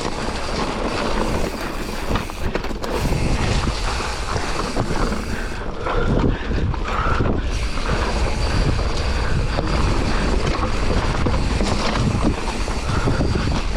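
Wind buffeting a GoPro's microphone over a steady low rumble from the trail ride, at a steady loud level with no clear breaks.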